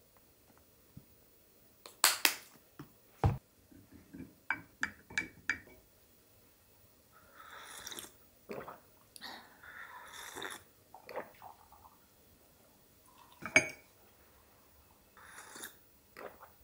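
A glass tea cup, saucer and metal teaspoon clinking: a quick run of light clinks with a brief ring and a few heavier knocks, with soft sipping noises in between.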